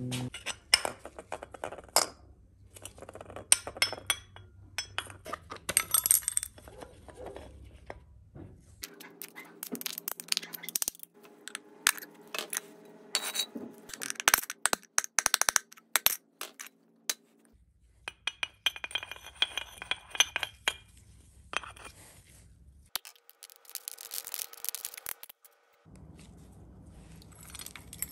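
Metal clinking, tapping and scraping as AC condenser fan motors are pried apart with a screwdriver: many sharp, irregular clicks and knocks of steel and aluminium parts, in several short clips that cut abruptly from one to the next.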